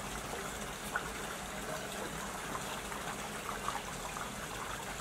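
Steady trickling and rushing of running water, with a few faint short chirps over it.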